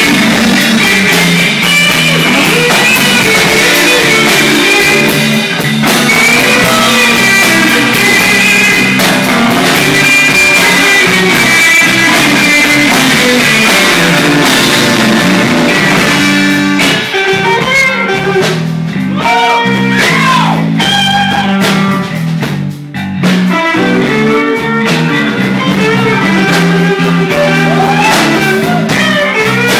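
Live band playing a slow blues, with an electric guitar lead playing bent notes over the band.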